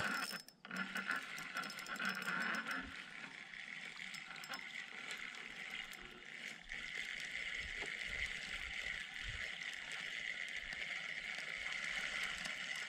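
Fishing reel being cranked to bring in a hooked fish.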